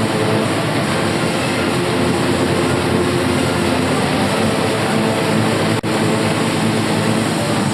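Loud, steady roar of spectators in an indoor swimming arena during a butterfly race, with a brief cut-out almost six seconds in.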